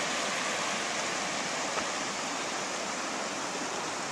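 Small snowmelt stream running over rocks: a steady rush of water.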